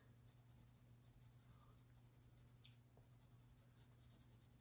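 Faint scratching of a wax crayon colouring back and forth on paper in quick repeated strokes, over a low steady hum.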